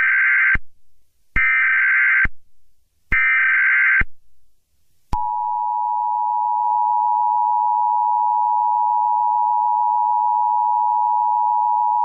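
Emergency Alert System tones: three short bursts of SAME header data, each just under a second, then, about five seconds in, the steady two-tone EAS attention signal, which holds unbroken.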